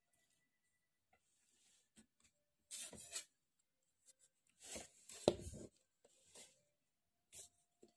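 Clear plastic drafting triangle and ruler being slid and set down on drawing paper: several short scraping rubs, the loudest ending in a sharp tap about five seconds in.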